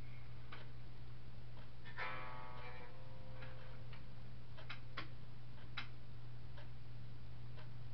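A Squier electric guitar through a Fender Frontman 15G practice amp: one chord strummed about two seconds in, ringing out for about a second, over a steady low hum. Scattered light clicks come every second or so.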